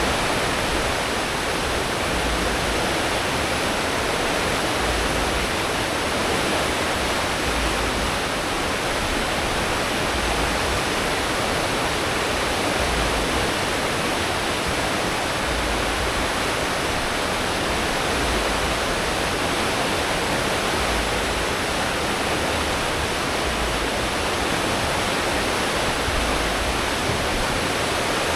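Churning water of a cruise ship's wake at full speed, heard from the stern as a steady, dense rushing hiss, with a low rumble from the ship's engines and propellers underneath.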